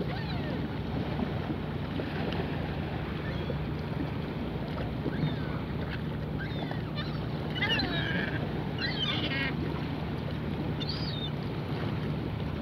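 Gulls calling over the sea: a few calls about seven to nine seconds in, the loudest near eight seconds, and one more near eleven seconds, over a steady wash of wind and water.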